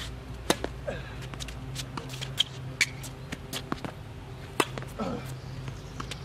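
A tennis rally on a hard court: the sharp pop of a racket hitting the serve about half a second in, then lighter pops of the return and the ball bouncing, and another loud racket strike on a forehand just past the middle.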